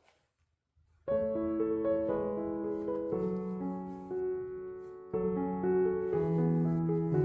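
Background piano music begins about a second in, after a moment of near silence, with a new phrase starting about two seconds before the end.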